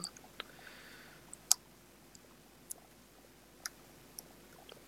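A few sharp, scattered clicks as a small cover plate is pressed and forced back into place inside an opened smartphone, the loudest about a second and a half in.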